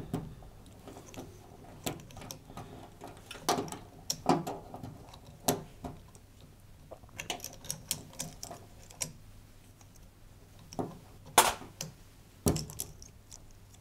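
Irregular small clicks and taps of wiring being handled: a tumble dryer heater's plastic-sleeved spade connectors being pulled off and pushed onto terminals. The sharpest click comes late on.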